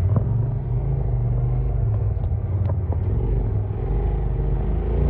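Side-by-side UTV engine running under load as it climbs a steep sandstone rock face, with a few light clicks about halfway through.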